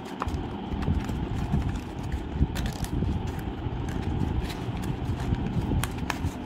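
Paper being handled, rustling and crackling as hands fold and crease a paper box, with scattered sharp clicks and taps over a steady low rumble.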